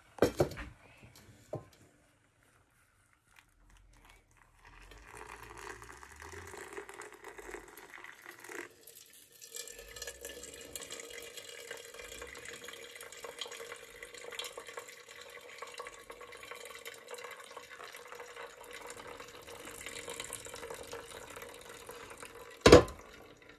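Water running steadily into a container, with a faint steady hum under it; it starts a few seconds in, stops briefly, then runs on. A single loud knock near the end.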